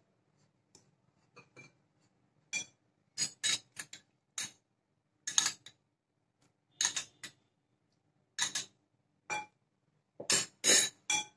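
Steel spoon clinking against glass bowls as milk is spooned from a small glass bowl into a large glass mixing bowl of coconut and milk powder. Irregular sharp clinks and taps, often in twos or threes, loudest near the end.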